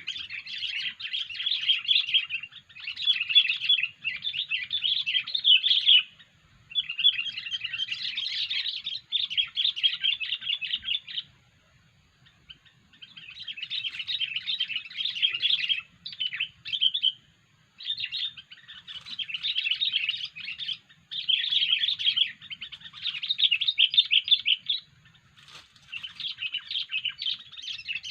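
Sooty-headed bulbul (kutilang) singing unusual song phrases. Rapid chattering runs of a few seconds each are broken by short pauses, one of them about two seconds long near the middle.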